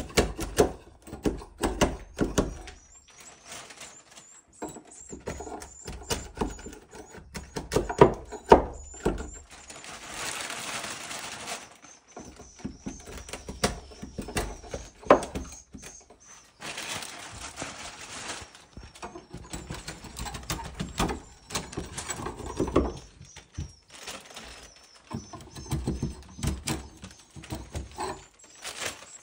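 Swiftlet nests being scraped and pried off the wooden rafters of a swiftlet house: irregular knocks and clicks, with two longer scratchy scraping spells in the middle.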